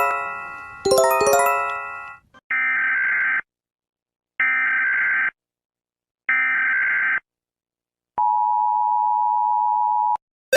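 Emergency Alert System alert: a chime chord is struck twice and dies away. Then come three bursts of SAME digital header tones, each about a second long and about a second apart. Last, the steady two-tone EAS attention signal sounds for about two seconds and cuts off.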